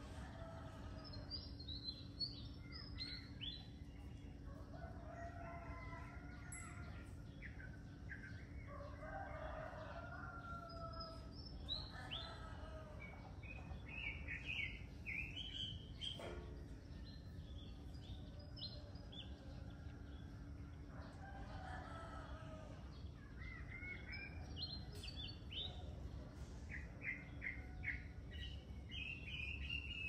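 Morning bird chorus: small songbirds chirping in quick runs of short notes, while a rooster crows several times. A steady low hum lies underneath.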